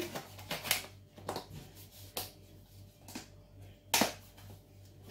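Quiet kitchen room sound with a few faint, separate clicks and light knocks, about one a second, over a low steady hum.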